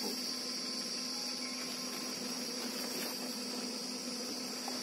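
Steady high-pitched drone of insects, even and unbroken, with a faint low steady hum underneath.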